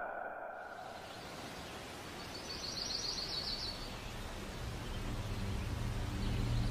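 Quiet night ambience: a faint hiss with a brief, fast, high chirping trill a couple of seconds in, then a low drone of eerie background score swelling near the end.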